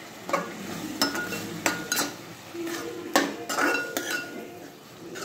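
Long steel spoon stirring a thick halwa mixture in a large aluminium pot, scraping and striking the pot in several sharp, irregular clanks, some with a brief metallic ring.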